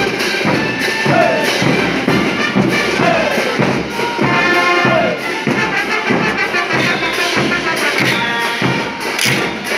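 Live morenada music: a band with brass and drums plays a steady rhythm, mixed with the rattling clatter of matracas, the spinning wooden ratchets the dancers swing.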